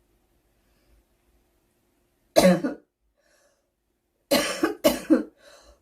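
A girl coughing: one cough about two and a half seconds in, then two more in quick succession about four seconds in.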